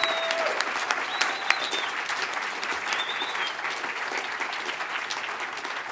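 Audience applauding, the clapping slowly dying down, with a few short voices calling out over it near the start and about three seconds in.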